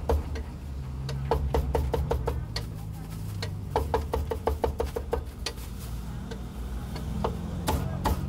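Cleaver chopping crispy-skinned roast pork on a thick wooden chopping block: quick runs of sharp chops with short pauses between, over a steady low hum.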